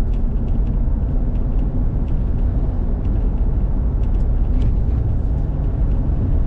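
Car interior while driving on a paved road: a steady low rumble of engine and tyre noise, with scattered faint light clicks.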